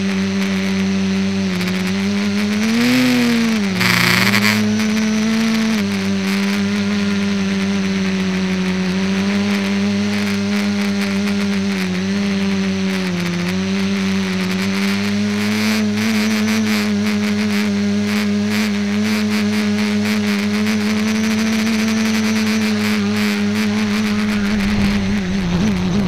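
Electric motors and propellers of an ETFD2 FPV model aircraft, heard from its onboard camera: a steady pitched buzz that rises briefly about three seconds in and dips once mid-flight, then winds down in pitch near the end as the aircraft lands and the motors spin down.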